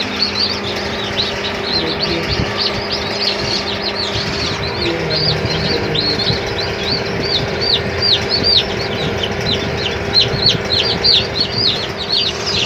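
Many newly hatched chicks peeping continuously, a dense stream of short high chirps several to the second. A steady low hum runs underneath.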